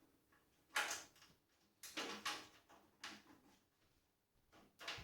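A few faint knocks and clunks, spaced irregularly about a second apart.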